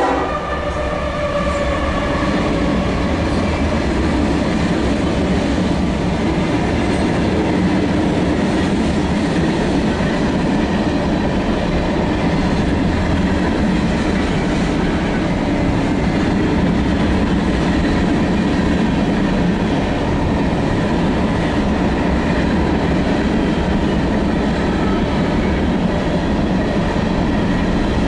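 CSX diesel freight train rolling through a grade crossing: the locomotive passes, then a long string of open-top freight cars follows, with a steady noise of steel wheels on the rails.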